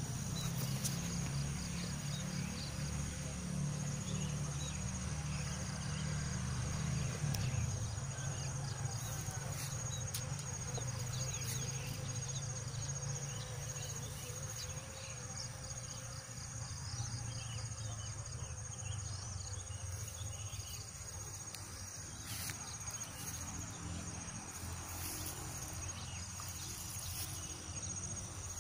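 Insects trilling steadily in a high, thin pitch, with a fast pulsing chirp just beneath it, over a low rumble that eases after about eight seconds.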